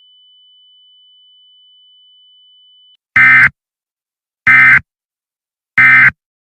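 Emergency Alert System end-of-message data tones: three short, loud bursts of warbling digital modem-like tone, evenly spaced about a second and a half apart, marking the end of the alert. Before them, a faint steady high tone sounds for about three seconds and then cuts off.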